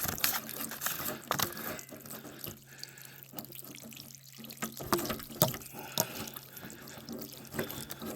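Water spattering and dripping from a water heater's clogged drain as a wire is worked in it to clear sediment, with scattered irregular clicks and knocks.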